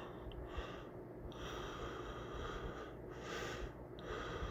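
A sleeping man breathing slowly and faintly, with breaths in and out that are heavy but not really a snore.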